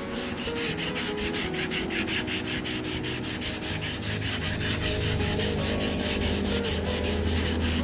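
Hand wet-sanding of a painted Proton Wira spoiler with a sanding block, in quick even back-and-forth strokes at about five a second.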